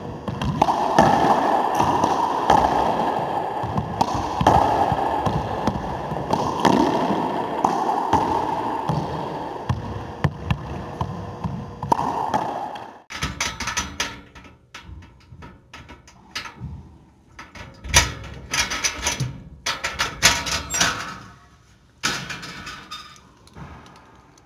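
Racquetball play in an enclosed court: the ball smacked by the racquet and banging off the walls every second or two, each hit ringing with a heavy echo. About halfway through this gives way to close handling noise, with clothing rustling and scattered clicks and knocks right at the microphone.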